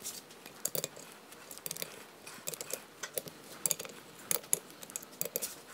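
Ratcheting torque wrench clicking in short runs of light ticks as the crankcase side-cover bolts are tightened down.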